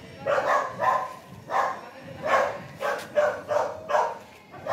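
A dog barking repeatedly, about nine short barks at an uneven pace.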